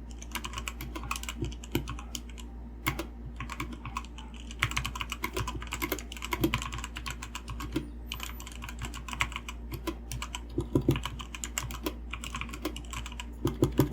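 Fast typing on a Redragon Fizz 60% mechanical keyboard: a dense run of key clacks with a few brief pauses, over a steady low hum.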